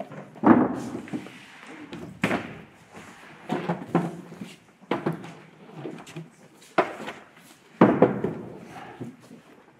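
Wooden crates, trunks and set pieces being set down and pushed about on a stage floor: a string of heavy thuds and knocks, roughly one every second or so.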